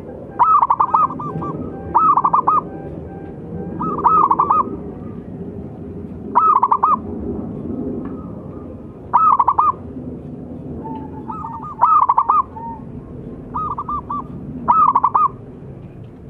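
Zebra dove (perkutut) cooing: about nine short, rapid, rippling phrases, repeated every second and a half to two and a half seconds, over a steady low background hum.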